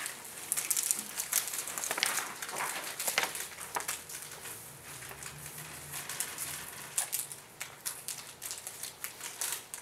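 Several Skittles candy packets being torn and crinkled open, with the hard-shelled candies clicking as they spill onto desks and paper; the clicks and crinkles are dense at first and thin out after about four seconds.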